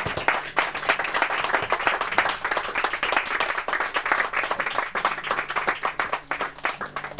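A small audience clapping by hand, thinning out towards the end.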